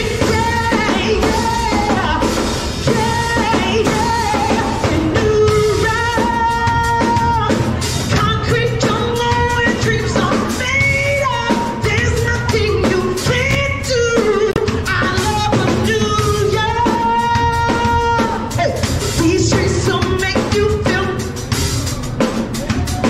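A woman singing live into a microphone over a drum kit, holding long notes that bend and slide in pitch while the drums keep a busy beat.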